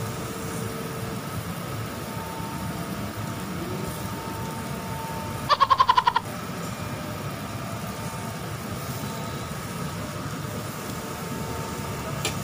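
Steady noise of a tabletop Korean BBQ grill with meat cooking and its overhead exhaust hood running. About halfway through, a loud, quick trill of high pulsed beeps lasts under a second.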